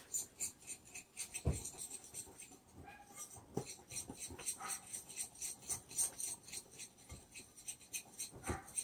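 A wire whisk stirring dry cocoa mix in a glass mixing bowl: quick, even scratching strokes, about five a second, with a louder knock of the whisk against the bowl a couple of times.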